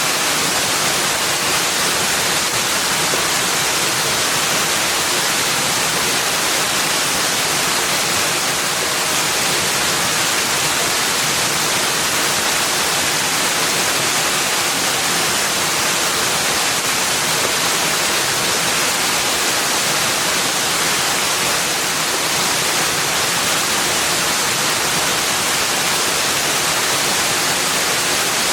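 Steady rushing of running water, an even hiss that never changes.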